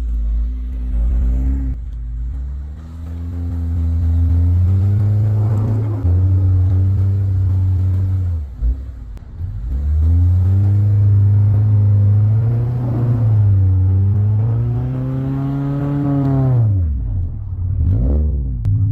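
Subaru Crosstrek's flat-four engine revving up and down repeatedly while the car drives through snow, its pitch climbing, holding and dropping several times, with quick deep swoops near the end.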